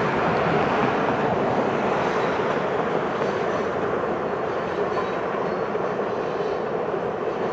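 Loaded grain hopper cars of a freight train rolling past, a steady rumble of wheels on rail that slowly fades.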